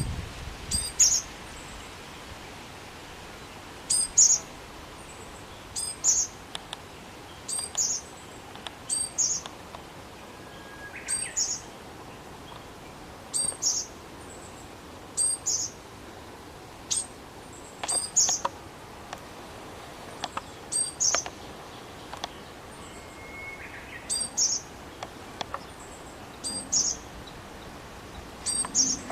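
Japanese tit singing its repeated song. Each phrase is a high note followed by a slightly lower one, given in quick pairs, and the phrases come again and again about every one and a half to two seconds.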